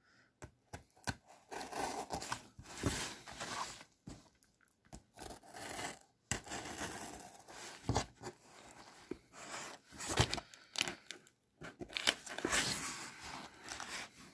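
Scissors slicing through packing tape along the seams of a cardboard box, with the tape tearing and the cardboard scraping and rustling as the box is turned, in irregular bursts.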